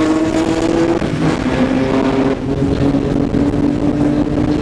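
Nissan Skyline R32 GT-R's twin-turbo straight-six accelerating hard through the gears. The engine note climbs, drops at a shift about a second in, climbs again, and drops at a second shift about two and a half seconds in before rising once more.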